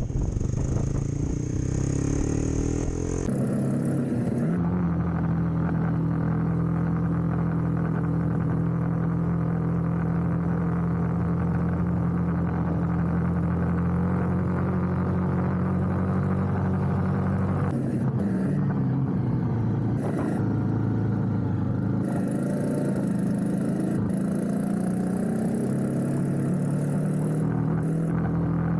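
Honda CRF250 Rally's single-cylinder engine running under way at a steady cruising note. About 18 seconds in, the engine note starts to shift as the revs rise and fall.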